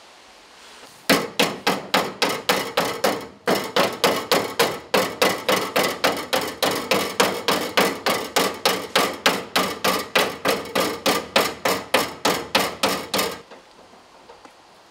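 Hammer striking the steel front wing of a Mercedes E-class in a steady rhythm of about four blows a second. It starts about a second in, pauses briefly near the three-and-a-half-second mark, and stops shortly before the end.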